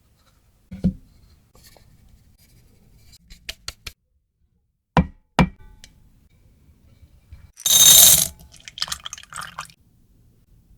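Kitchen prep sounds of a cake mold and utensils being handled: light clicks and knocks, then two sharp knocks in quick succession. Near the end comes a brief loud rustling rush, followed by small rattles.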